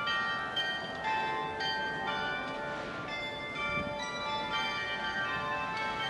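Church bells ringing, a new strike about every half second, the tones overlapping and ringing on.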